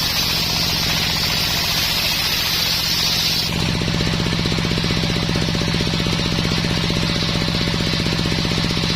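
Homemade circular sawmill running, its blade cutting through dense coconut wood with a high hiss over the engine's fast, steady pulsing drone. About three and a half seconds in, the cut ends and the hiss drops away, leaving the blade and engine running.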